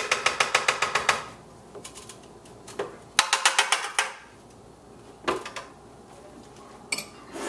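A spoon tapping rapidly against the rim of a blender jar to knock almond butter off it, about ten taps a second. There are two quick runs of taps, the first at the start and the second about three seconds in, with a few single knocks between and near the end.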